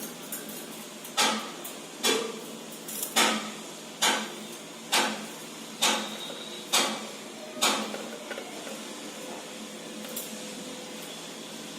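A series of about eight sharp knocks, evenly spaced at roughly one a second, each with a brief ring; they stop about eight seconds in.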